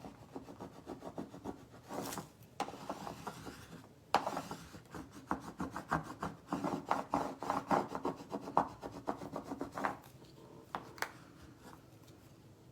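Adhesive vinyl being rubbed down onto a canvas in quick, repeated scraping strokes, which stop about ten seconds in and give way to a few light clicks.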